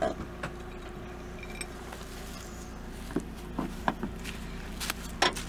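Scattered light clicks and knocks from a tow strap being fitted to a car's rear tow point, over a low steady hum.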